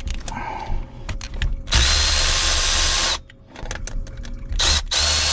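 Cordless power tool spinning a socket on a 10 mm bolt: it runs twice with a steady high whine, each run about a second and a half, with a short blip just before the second. Light clicks and taps of the socket and tool come between the runs.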